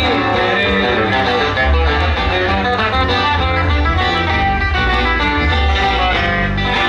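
Loud dance music with a plucked-guitar melody over a bass line that moves note to note.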